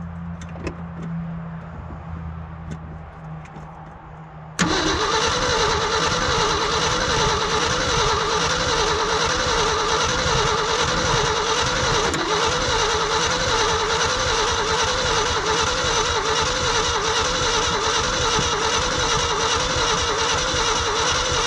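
Old Ford F-350 pickup's engine being cranked on the starter for about 17 seconds without catching. It starts suddenly about four and a half seconds in, and the starter's whine rises and falls in an even rhythm with each compression stroke. The long-dormant engine in cold weather turns over but will not fire, even though it has spark and fuel.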